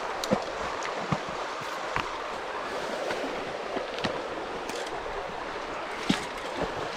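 Shallow stream running steadily, with irregular footsteps and brushing through grass and undergrowth on the bank; a sharper knock about six seconds in is the loudest sound.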